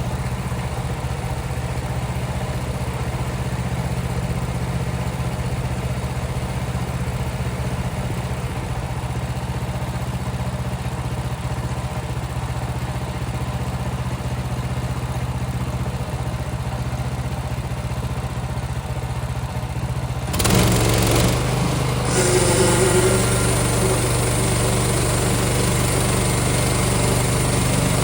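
Small gasoline engine of a portable bandsaw sawmill running steadily. About twenty seconds in the sound turns suddenly louder and harsher, as the band blade starts cutting a board off the pine log.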